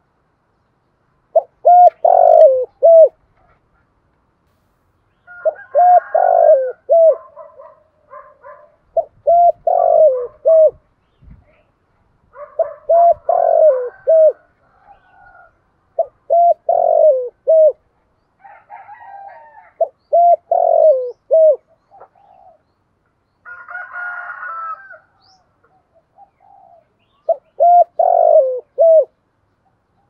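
Spotted dove cooing: its multi-note coo phrase repeated about every three and a half to four seconds, with fainter, higher bird calls between the phrases.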